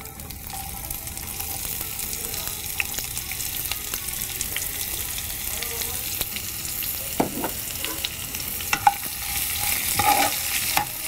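Chopped onions sizzling steadily in hot oil with whole spices in a non-stick kadai, the oil hot enough to crackle. A steel spoon scrapes and knocks against the pan as the onions are stirred, more and more often in the last few seconds.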